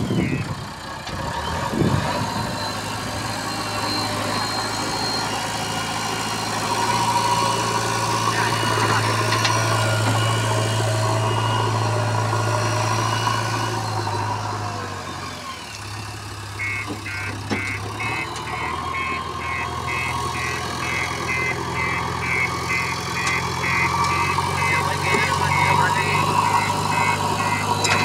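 JCB 3DX backhoe loader's diesel engine running steadily, dipping briefly about halfway through. Soon after the dip a rapid electronic warning beeper starts, about two to three beeps a second, and keeps on.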